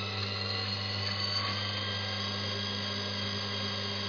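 Balancing machine spinning a Ford 351 Windsor crankshaft on a measuring run to read the remaining imbalance: a steady hum with a faint whine.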